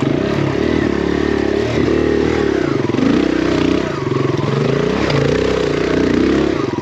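Kawasaki KLX dirt bike's single-cylinder four-stroke engine, big-bored to 170cc, revving up and down in repeated short blips of throttle. The pitch rises and falls every second or so, as at low speed on technical ground.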